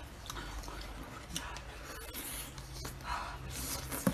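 Faint close-up eating sounds from a braised goose head being bitten and sucked at: soft scattered wet mouth noises and rustling over a low hum, with a sharp click near the end.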